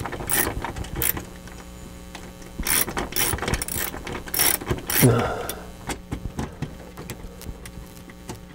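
Ratcheting nut driver clicking in short runs as it backs off a nut. A brief falling-pitched sound about five seconds in, then only faint ticks.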